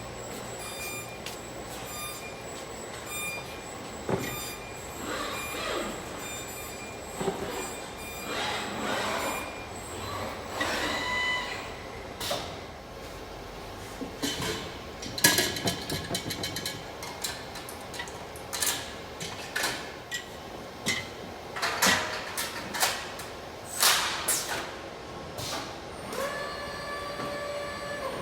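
Industrial welding machinery on a car-parts production line: clanking and knocking metal, with short squeals and hisses and a steady hum near the end.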